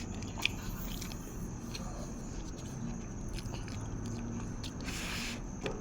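Close-up mouth sounds of a person chewing and biting food, with scattered sharp wet clicks over a steady low background hum. There is a brief hiss about five seconds in.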